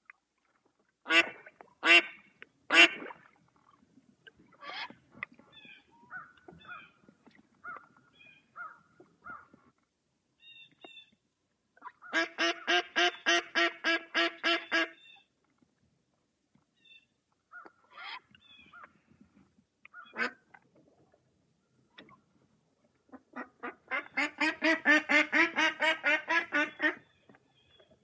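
Mallard duck quacking: three loud quacks about a second in, then scattered softer quacks, a quick run of about a dozen quacks around the middle, and a longer run of rapid quacks, about four a second, near the end.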